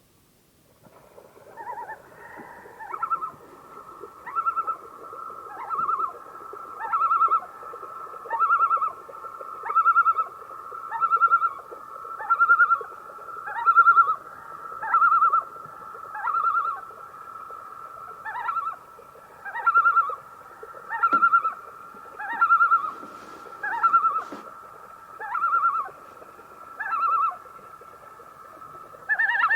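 Common loon calling: a long series of about nineteen wavering, quavering phrases repeated roughly every second and a half over a held tone, loudest in the middle, with a low steady background hiss.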